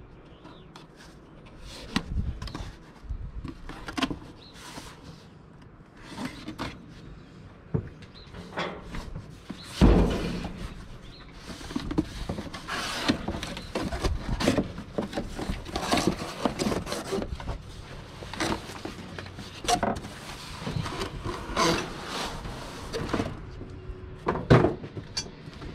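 Cardboard shipping box being opened and unpacked by hand: cardboard and packing rustling, scraping and tearing, with knocks as the box is handled, a heavy thump about ten seconds in and a sharp knock near the end.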